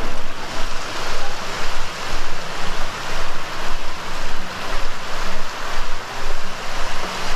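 Waves washing onto a sandy beach, with wind buffeting the microphone; the rushing noise swells and fades about twice a second.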